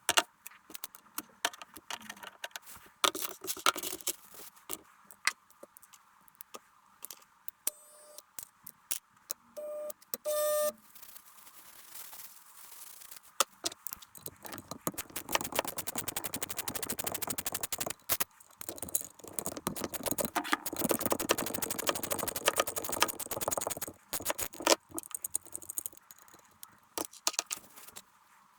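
Small metal parts and hand tools clinking, scraping and rattling while a transmission mechatronics unit is taken apart. Scattered sharp clicks give way to a long run of rapid clicking in the middle, with a short steady tone about a third of the way in.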